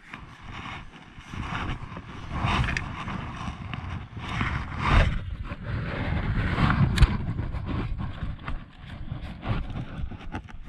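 Wind buffeting the microphone while a baitcasting rod is cast and handled from a kayak, with a sharp click about seven seconds in.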